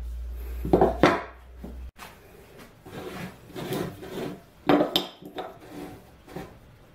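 Square plywood blanks handled on a wooden workbench: sharp knocks as pieces are set down, with sliding and rubbing of wood on wood. A low hum underneath stops suddenly about two seconds in.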